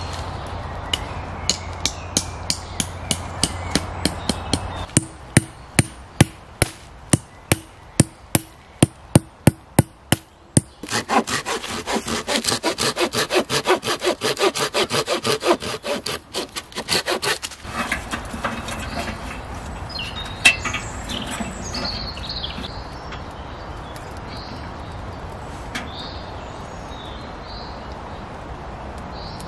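Hand saw cutting through wood: separate strokes about twice a second, then quicker, fuller back-and-forth sawing that stops about two-thirds of the way through. Birds chirp faintly after the sawing stops.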